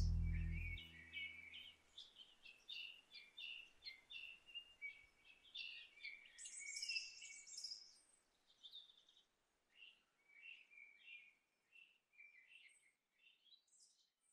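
Birds chirping, many short high calls in quick succession, fading softer in the second half. A held music chord dies away in the first second.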